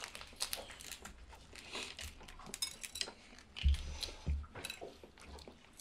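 Hard-boiled egg shell crackling and clicking as it is peeled off by hand, in many small irregular cracks. Two dull thumps come about two-thirds of the way through.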